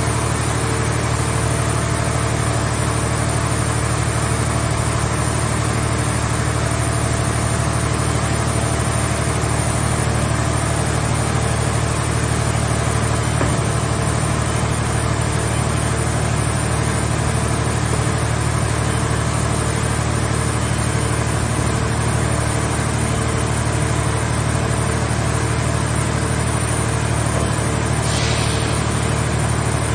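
Hydraulic power unit of a portable scrap-car baler running steadily at constant speed, a deep even hum with a steady whine over it. A short hiss comes near the end.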